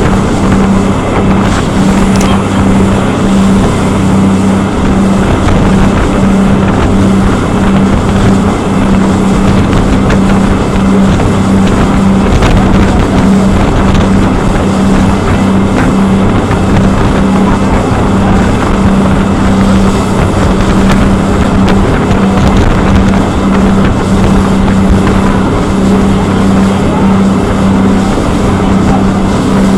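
Jet boat's engine running steadily at speed, a loud constant drone, with wind buffeting the microphone.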